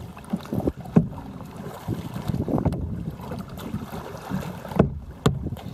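Choppy water slapping and splashing against a plastic kayak's hull, with wind buffeting the microphone. A few sharp knocks stand out, about a second in and twice near the end.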